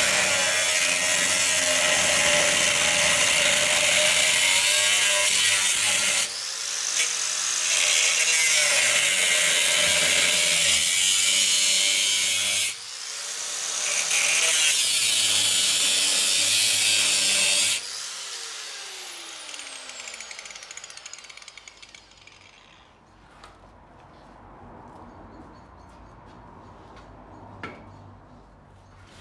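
Angle grinder with a cut-off disc cutting through the steel chassis rail of a Land Rover Defender 110. It runs in three long cuts, each broken off briefly, about six and about twelve seconds in. About eighteen seconds in the grinder is switched off, and its whine falls as the disc spins down, leaving faint clatter and a small knock near the end.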